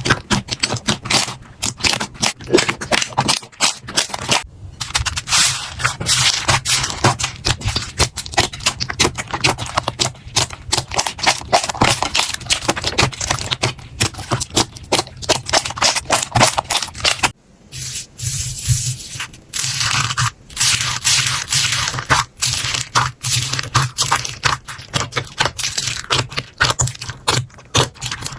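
Slime being squeezed and poked by hand, giving a dense, continuous run of crackling, clicking and popping, broken by a short drop about seventeen seconds in.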